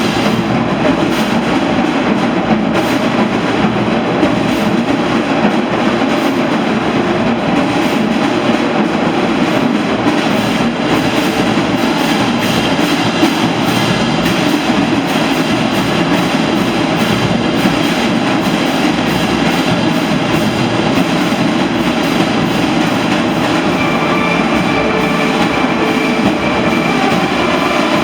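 High-school marching band playing at full volume, so loud on the recording that the horns and drums blur into a dense, steady roar, with a regular beat faintly ticking through it.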